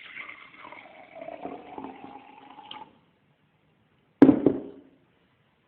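Liquid being poured, a splashing pour with ringing tones that lasts about three seconds and stops. About four seconds in comes a single sharp knock with a short ring, the loudest sound here.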